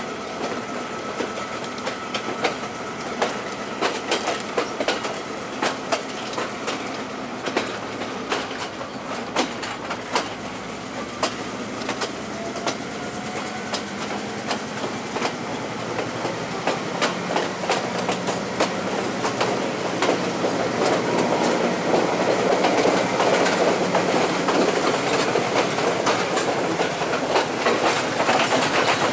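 Passenger train and the manual rail trolley coupled behind it rolling slowly along the track, steel wheels clicking irregularly over the rail joints over a steady rumble. The rumble grows louder in the second half.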